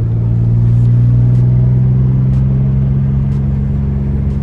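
Car engine and road drone while driving at a steady speed, a low, even hum that rises slightly about a second in, with faint ticks roughly once a second.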